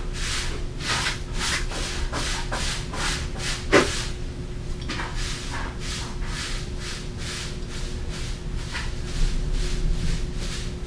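Repeated rubbing strokes, about two a second, from hand work on a PCP air rifle's metal parts, with one sharper stroke about four seconds in.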